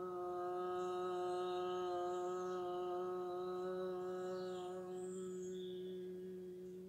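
A woman chanting one long Om on a single steady note. The open 'O' closes into a humming 'M' about five seconds in, fading out near the end.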